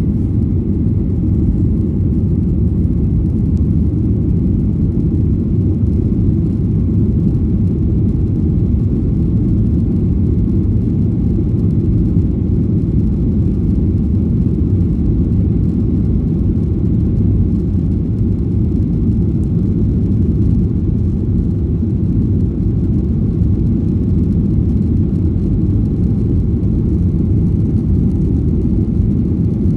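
Steady low roar of an airliner's cabin in flight: engine and airflow noise heard from inside the cabin, unchanging.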